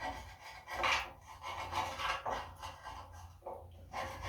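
Irregular rasping strokes of a tool scraping built-up old grease off a steel vehicle frame, a few strokes about a second apart.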